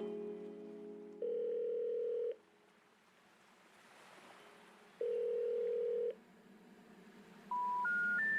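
Electronic beeps: two long, steady beeps a few seconds apart, then three short beeps rising in pitch near the end.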